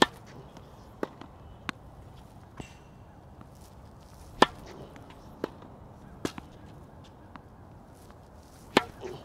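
Tennis balls hit off racket strings and bouncing on a hard court, heard as sharp separate pops. The three loudest come about four and a half seconds apart, at the start, in the middle and near the end, with fainter ones between them.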